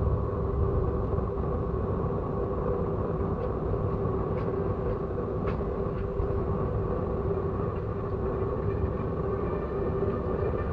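Train running with a steady low rumble and a steady hum held throughout, with a few faint clicks in the middle.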